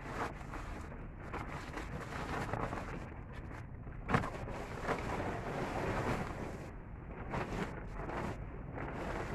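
Rustling of dried banana leaves and a plastic tarpaulin being handled and pulled over them, with wind noise on the microphone and one sharp snap about four seconds in.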